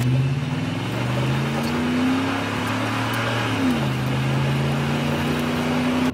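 Ford F-150 SVT Raptor's 6.2-litre V8 accelerating hard on dirt. The engine note climbs for about three and a half seconds, drops sharply at a gear upshift, then holds nearly steady, over the rushing noise of tyres on loose ground.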